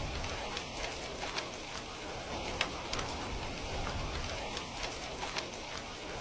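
Heavy rain falling steadily, an even hiss with scattered sharp drop ticks about once or twice a second.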